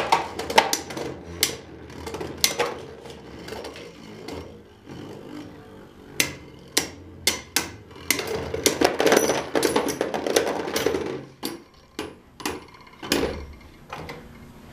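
Beyblade spinning tops spinning and clashing in a plastic Beyblade stadium: sharp clacks as the tops strike each other and the stadium walls, bunched together in quick runs, with a steadier whirring scrape of tops grinding across the stadium floor in the middle.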